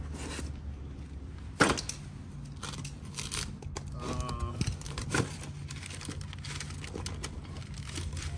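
Packaging being handled while parts are pulled from a coilover box: rustling and tearing, with sharp knocks about one and a half seconds and five seconds in, over a steady low hum.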